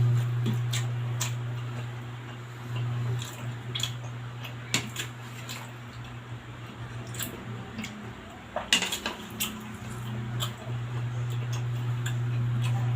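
Spoon and fork clinking against a plate and bowl while eating, as scattered sharp clicks, one sharpest about nine seconds in, over a steady low hum.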